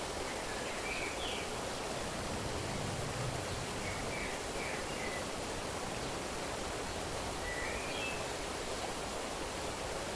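Steady rush of flowing water, with faint, short bird chirps in three brief bouts: about a second in, around four to five seconds, and near eight seconds.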